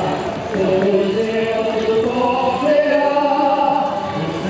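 Male voices singing a slow chant in long, held notes.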